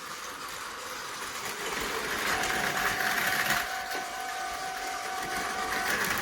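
Battery-powered Tomy Plarail toy trains running on plastic track: a steady small-motor whine with a whirring rattle of gears and wheels. The whine fades early and comes back about two seconds in.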